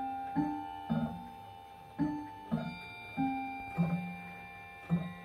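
Howard Miller pendulum wall clocks chiming the hour at five o'clock: a melody of struck notes at changing pitches, about one every half second, each ringing on as it fades.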